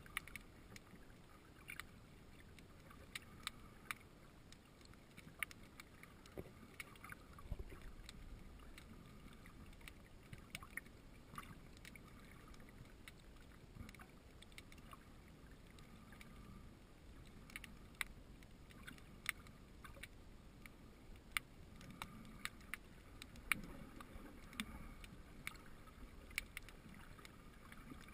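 Faint underwater ambience, with a low water rumble and scattered short sharp clicks at irregular intervals.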